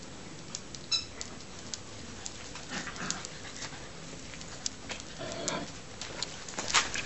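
English springer spaniels playing on brick paving: a short high yelp about a second in, scattered sharp clicks and scuffling as they move, and a loud sharp knock near the end.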